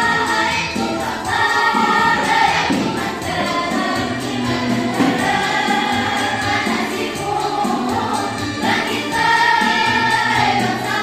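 A girls' choir singing together in held phrases.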